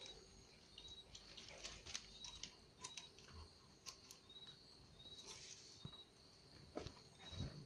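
Faint scattered clicks, scratches and rustles of small dogs' paws and claws moving on newspaper, with a short high chirp repeating about once a second in the background and a louder thump near the end.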